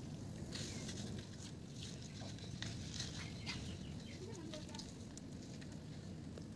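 Hands rubbing a dry spice masala into whole fish on a banana leaf: faint rustling, soft squishing and light leaf crackle that thin out after about four seconds, over a low steady background rumble.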